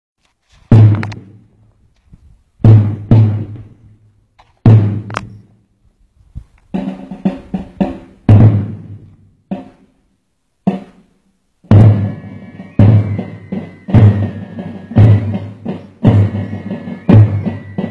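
Music built on heavy, ringing drum strikes. They start about two seconds apart, then from about twelve seconds in become a steady beat about once a second under a held high tone.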